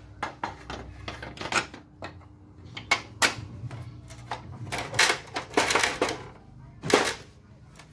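Irregular clicks and knocks of plastic parts on a Canon iR copier paper cassette as a repaired lock piece is fitted into place.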